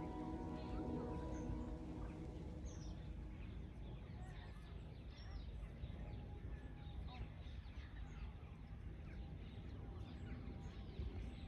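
Outdoor park ambience: a low steady rumble with scattered short bird chirps. Soft background music fades out in the first second or two.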